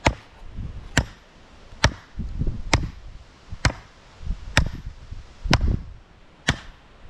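Steady hammering: eight sharp blows about a second apart.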